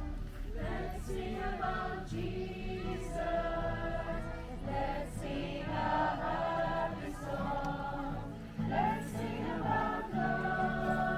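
Music: a group of voices singing together over a steady low accompaniment that changes note every second or so.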